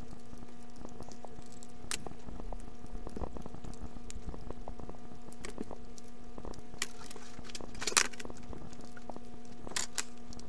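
Small screwdriver backing screws out of the plastic chassis of a K-Line toy switcher locomotive: faint clicks and scrapes, with a brief louder clatter about eight seconds in, over a steady hum.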